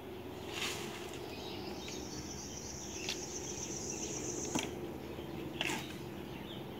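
Rural outdoor ambience: an insect trills at a steady high pitch from about two seconds in and cuts off suddenly after the middle. A few short chirps and clicks come over a faint low hum.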